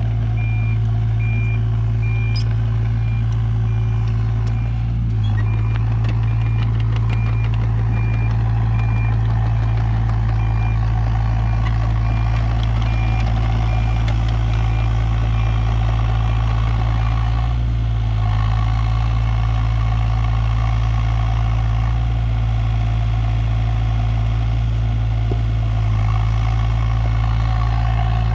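Kato 35 mini excavator's diesel engine running steadily at working speed, with its high-pitched warning beeper sounding in an even repeating pattern that stops about two-thirds of the way through.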